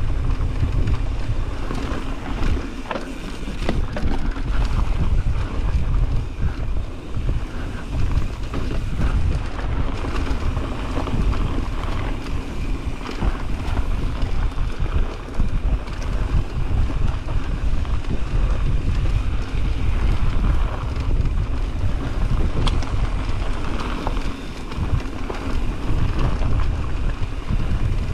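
Wind buffeting the microphone of a camera on a mountain biker descending a dirt trail, under the rolling of the tyres and a steady clatter of the bike rattling over bumps.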